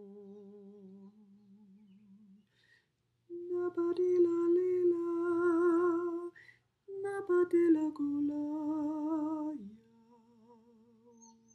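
A man singing wordless, channelled 'light language' tones: a held note with vibrato fades away, then after a short pause come two loud sustained notes of about three seconds each, the second starting higher and sliding down. Near the end it drops to a faint, wavering low hum.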